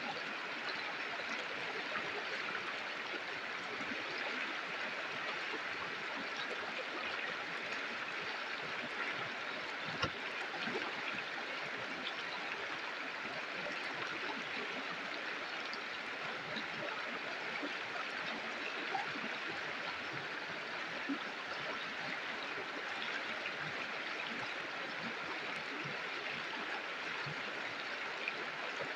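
River water flowing and babbling steadily over rocks, with small splashes and gurgles.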